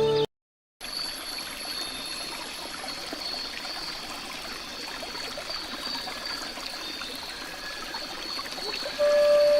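Trickling stream: a steady running-water hiss with a thin, steady high tone above it.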